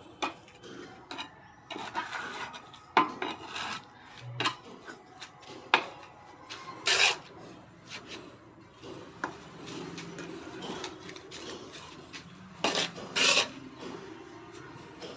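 Steel trowel scraping and spreading a sand-cement mortar bed, with irregular scrapes and light knocks; a few louder scrapes, one about seven seconds in and two near the end.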